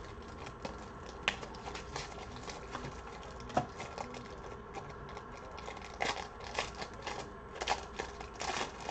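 Rigid plastic top loaders (card holders) being handled: scattered clicks and crinkling rustles, busier about six seconds in and near the end.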